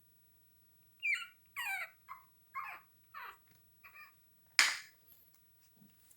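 Chihuahua puppies whining and yelping: a run of short, high-pitched squeals, several falling in pitch, with one loud sharp burst a little past the middle.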